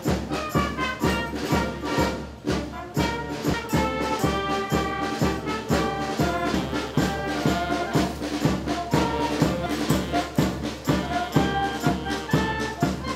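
Orchestral music led by brass instruments, with a regular beat throughout.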